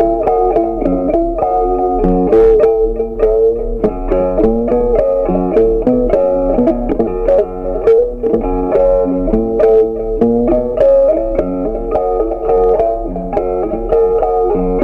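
Background music: plucked guitar with a bass line, playing a steady run of notes.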